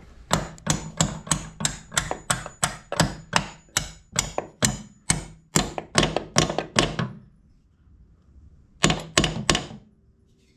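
Hammer driving a lubed hinge pin into the lower door hinge of an old GM car: a quick run of about twenty sharp metal blows, roughly three a second. After a pause of about two seconds come four more blows near the end.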